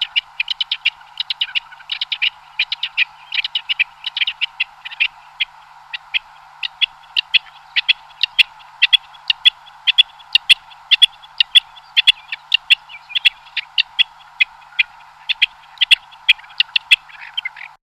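A bird's call: short, sharp chip notes repeated in quick, irregular series over a steady background hiss.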